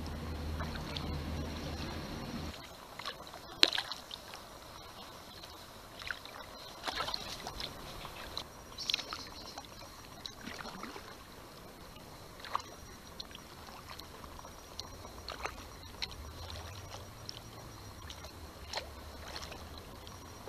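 Kayak paddling on calm water: scattered drips and small splashes from the paddle, with one sharper click about three and a half seconds in. A low rumble underlies the first couple of seconds, then stops.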